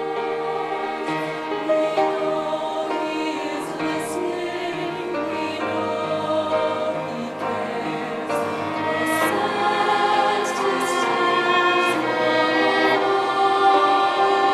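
Mixed choir singing sustained chords with orchestral accompaniment, growing a little louder in the second half.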